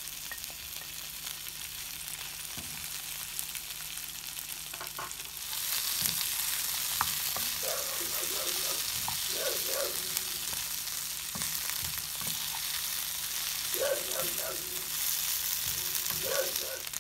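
Chicken, sliced bell peppers and onion sizzling in a frying pan on high heat and being stirred with a wooden spoon; the sizzle gets louder about five seconds in. In the second half a dog barks in short bursts, four times, behind the sizzle.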